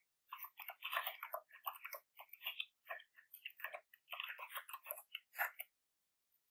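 Typing on a computer keyboard: a fast, irregular run of key clicks that stops about a second before the end.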